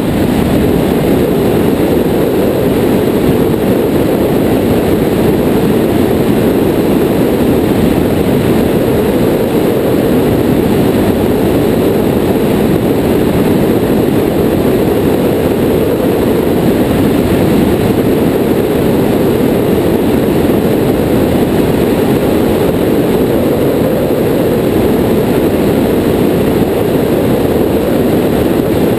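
Piper J3 Cub in cruise flight heard from outside the airframe: a steady engine and propeller drone buried in heavy wind rush on the microphone.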